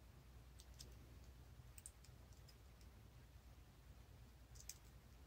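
Near silence with a low steady hum and a few faint, sharp clicks, about a second in, near two seconds and near the end, from small metal parts and tools being handled on the bench.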